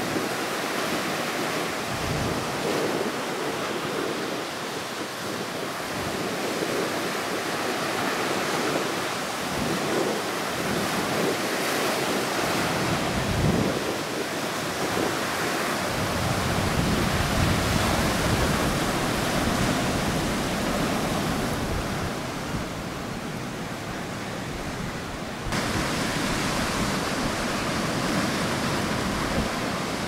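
Sea surf breaking and washing in the shallows: a continuous rush of white water. A deeper rumble joins it from about halfway through.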